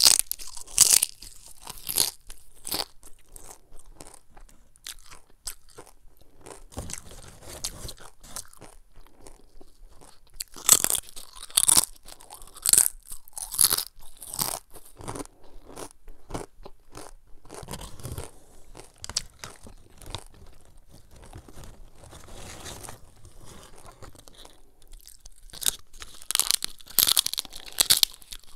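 Crisp cassava chips (Artisan Tropic cassava strips) being bitten and chewed: sharp crunches come in clusters as fresh chips are bitten, at the start, about eleven to fourteen seconds in and again near the end. Softer chewing fills the gaps between.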